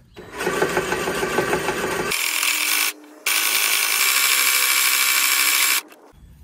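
The reel of a Yardforce LM C38 cylinder mower spun under power for backlapping, its blades grinding against the bedknife through coarse lapping paste to sharpen them. The sound is a steady rasping whir. It starts just after the beginning, drops out briefly near the middle, and stops about six seconds in.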